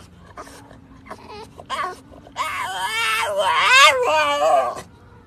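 French bulldog making a long, wavering squeaky whine about halfway through, after a few short, fainter squeaks.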